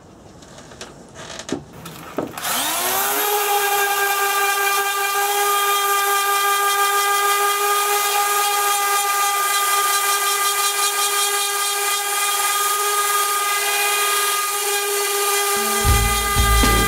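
Electric random orbital palm sander switched on about two seconds in after a few handling knocks, its motor whine rising quickly to a steady pitch as it sands a yew frame. Background music with deep bass notes comes in near the end.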